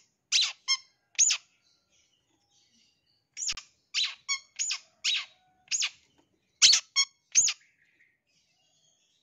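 Long-tailed shrike (cendet) giving short, sharp squeaky calls in quick bursts: three near the start, a pause of about two seconds, then a run of about ten that stops about a second before the end.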